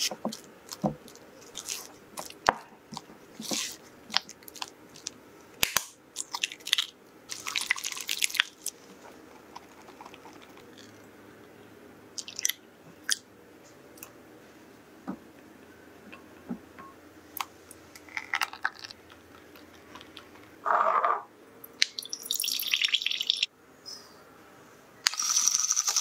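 Silicone spatula scraping and tapping against a glass mixing bowl while cream cheese and sugar are mixed, with scattered clicks. Later, ingredients are poured into the bowl. About a second before the end, a handheld electric milk frother starts whirring steadily in a glass.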